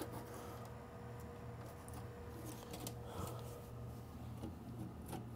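Faint light clicks and scrapes of a perforated sheet-metal panel being handled and lifted out of a server chassis, over a low steady hum.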